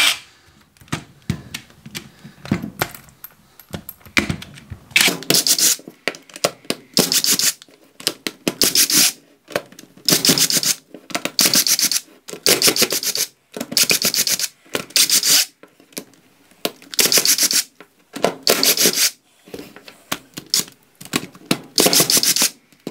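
Cordless impact driver backing out small Phillips-head screws from a plastic saw housing, running in about a dozen short bursts one to two seconds apart, starting about five seconds in. Small clicks and handling sounds come between the bursts.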